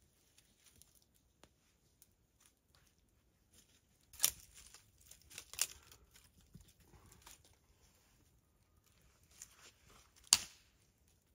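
Small crackles and clicks of burning and handled twigs, with three sharp snaps, the loudest about ten seconds in.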